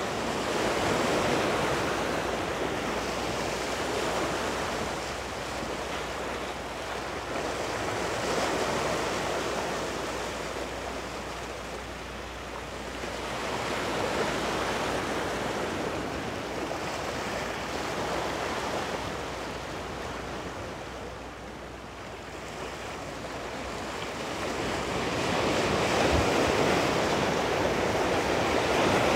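Sea waves washing against the rocks of a breakwater, swelling and easing every several seconds.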